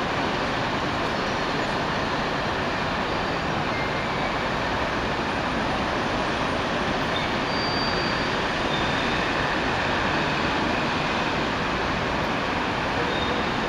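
Steady wash of city street traffic heard from high above, with double-decker buses, vans and cars passing below. A few faint, brief high tones come through the hum.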